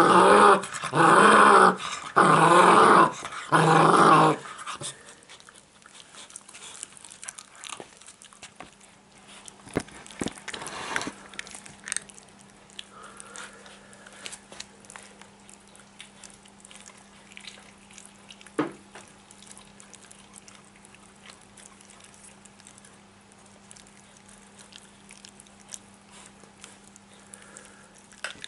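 Kuvasz puppy growling in several loud, short bursts over a piece of raw meat, guarding its food as a hand comes close. After about four seconds the growling stops, leaving faint chewing and gnawing clicks over a low steady hum.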